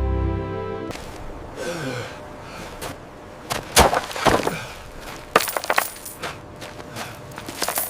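A run of sharp knocks and clattering impacts, several strong hits a little after the middle, preceded by a short falling tone.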